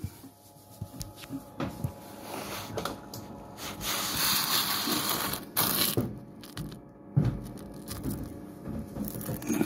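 Crunching, scraping and knocking handling noise. About four seconds in there is a louder rush of hiss-like noise lasting about two seconds.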